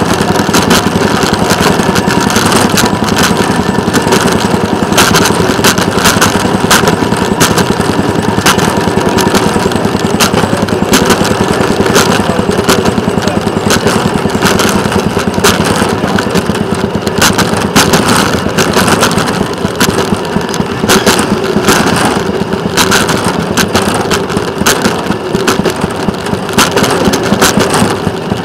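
Small engine of a rail vehicle running steadily as it travels along the track, with scattered sharp knocks and clicks over it.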